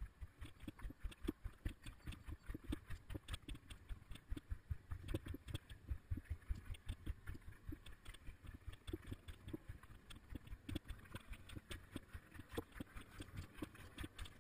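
Bicycle riding over rough, potholed gravel: a dense run of irregular knocks and rattles, several a second, as the bike and the camera on it jolt over the bumps.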